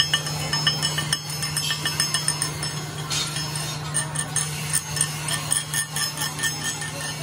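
Rapid, uneven light metallic clinks, several a second, as a small hand tool taps against a large steel gear, each strike ringing briefly. A steady low hum runs underneath.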